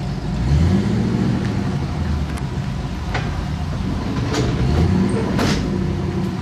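Vehicle engine running, rising in pitch as it revs up about half a second in, with a few sharp clicks or knocks over the top.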